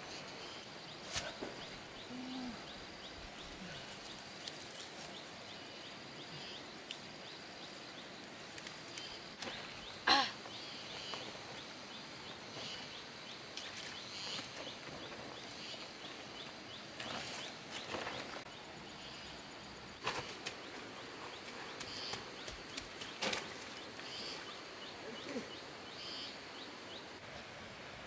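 Outdoor ambience: a steady hiss with a faint, fast, high ticking through most of it, and scattered sharp knocks and clicks, the loudest about ten seconds in.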